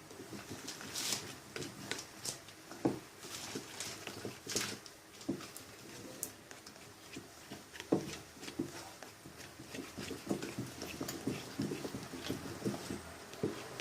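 A spoon stirring glue and borax-water slime in a container, making irregular short clicks and taps as it scrapes and knocks.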